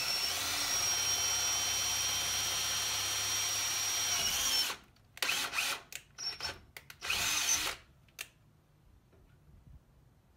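Cordless drill boring into the metal trailer tongue through the swing-away plate: a steady whine for about four and a half seconds, then four or five short trigger bursts, stopping about eight seconds in.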